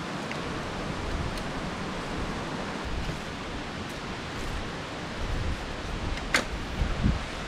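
Steady outdoor rushing noise with no clear pattern. About six seconds in there is a sharp click, followed by a few soft knocks, as a loaded touring bicycle is handled and parked.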